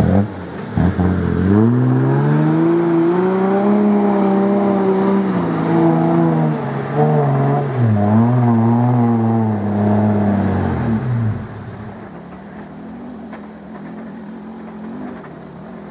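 Toyota Land Cruiser 80 series engine revving hard under load on a steep, slick clay hill climb: the pitch climbs, holds high with a dip and recovery in the middle, then falls away about eleven seconds in, leaving a much quieter steady sound.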